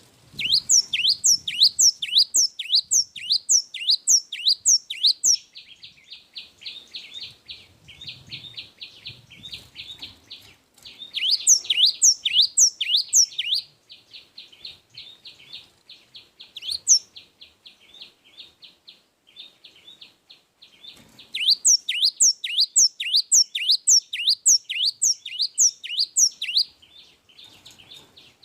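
Gelatik wingko (a form of the cinereous tit, gelatik batu) singing in long runs of sharp, rapidly repeated down-sweeping notes, two or three a second. This happens three times, with a softer quick chattering trill between the runs and a single loud note midway.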